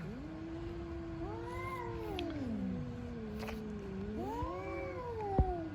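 Cats caterwauling at each other in a fight: long, drawn-out yowls that slowly rise and fall in pitch, the voices overlapping at times. A sharp knock sounds near the end.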